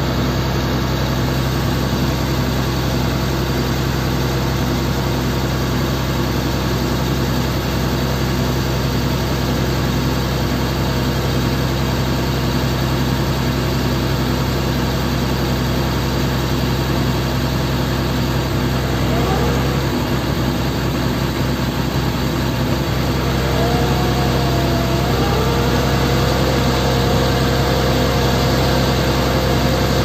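MAN CLA 26.280 concrete mixer truck's six-cylinder diesel running steadily with the truck standing still and its mixer drum turning. About two-thirds of the way in, a thin wavering whine joins, then holds steady as the overall sound grows a little louder.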